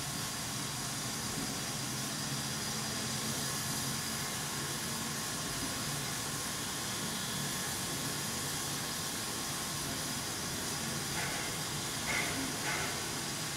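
Standing steam locomotive hissing steadily with steam.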